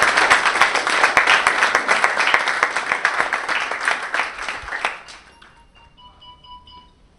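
Audience and panel applauding, the clapping thinning out and dying away about five seconds in.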